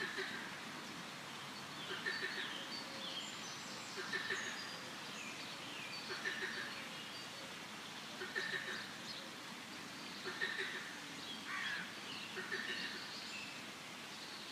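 Forest ambience of birds chirping and frogs calling, with one call repeating regularly about every two seconds over a steady background hiss.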